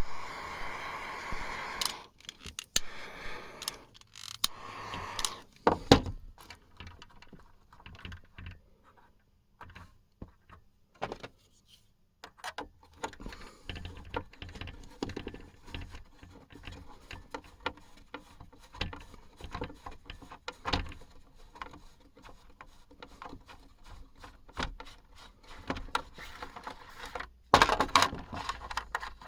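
Small clicks, taps and rattles of a hand working a small part and tools, with a few seconds of rushing noise in the first five seconds and a louder cluster of clicks near the end.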